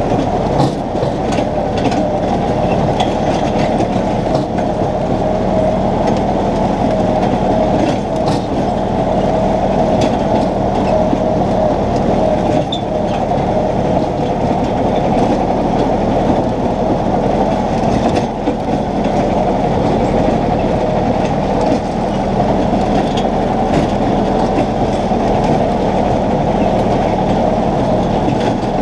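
Compact tractor's engine and mower running steadily while mowing grass, a constant droning hum that holds an even pitch.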